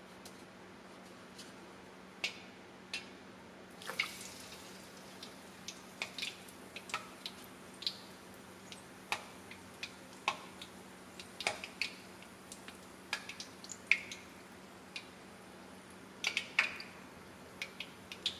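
Hot oil in a deep skillet frying coated chicken wings, with scattered sharp pops and crackles that come more often from about four seconds in.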